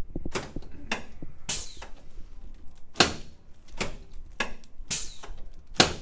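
A string of sharp knocks and clacks during a chiropractic adjustment of the head and neck on the treatment table, about eight in all and irregularly spaced. The two loudest are heavier thumps, about three seconds in and near the end.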